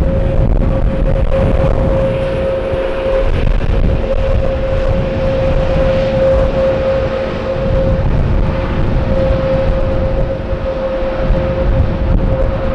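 Jet airliner engines on landing approach: a steady whine over a low rumble.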